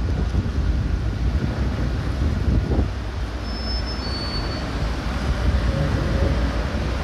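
A steady low rumble of background noise, with two brief high beeps a little past halfway, the second slightly lower in pitch.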